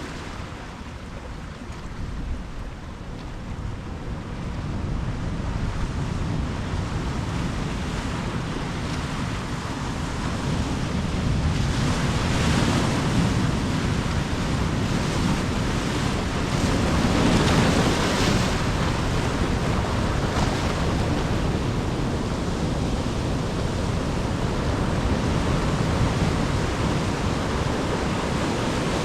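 Ocean waves breaking and washing on the shore, the surf swelling in surges, loudest around the middle, with some wind on the microphone.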